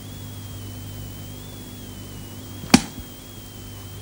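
Steady low hum and hiss of the recording, with a faint wavering high whine, broken by one sharp click about three quarters of the way through.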